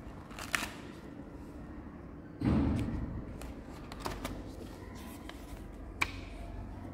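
Stiff chart-paper pages of a handmade project file being turned by hand: rustling, with a louder flap and thud about two and a half seconds in and a few sharp paper snaps.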